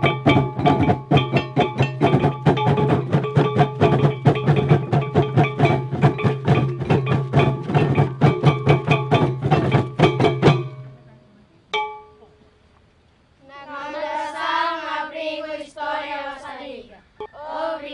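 Small hand drums beaten in a fast, dense rhythm under steady ringing metallic tones, in traditional Timorese dance percussion. The drumming stops about ten seconds in. After a single strike, voices start singing a chanted phrase a few seconds later.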